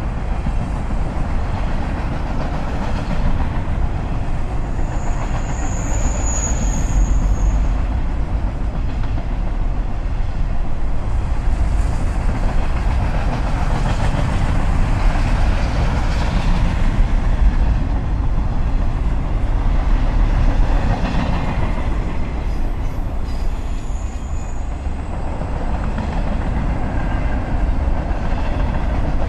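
Diesel locomotive engine idling with a steady deep rumble. A thin high whine comes in for a few seconds about five seconds in, and briefly again later.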